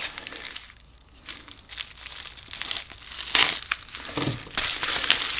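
Plastic bubble wrap crinkling as a wrapped exhaust link pipe is handled. It is quietest about a second in and grows louder and busier over the last two seconds.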